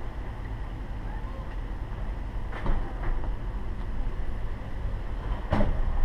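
Steady low rumble of an idling vehicle, with a few short knocks, the loudest near the end.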